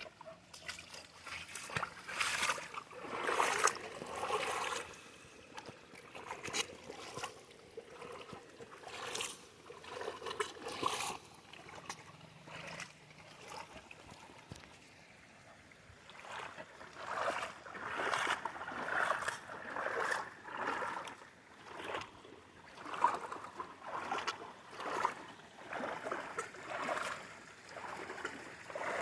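Footsteps wading through floodwater, boots sloshing and splashing. The steps settle into a steady rhythm of about one a second in the second half.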